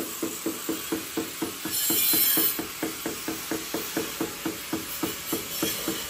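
Rapid, even clicking from a hand tool being worked, about three to four clicks a second, with a short burst of hiss about two seconds in.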